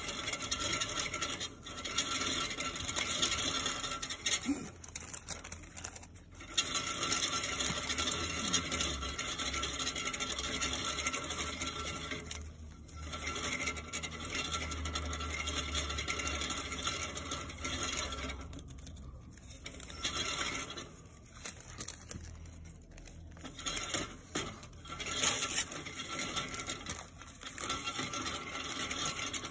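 A pet hamster scratching and rasping at its cage, a scratchy rasp in long stretches broken by short pauses.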